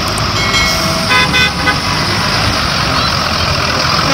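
School bus moving off and rolling towards the camera on a wet road, its engine running under steady road noise, with a few short horn-like toots about a second in.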